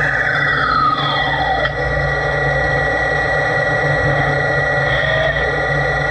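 LT-65 lathe running with a steady mechanical whine and hum. In the first second and a half a second whine falls steadily in pitch.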